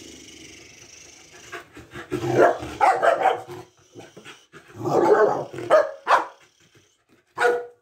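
Mixed-breed dog barking excitedly in short clusters while straining on a leash, with a faint hiss in the first second and single barks near the end.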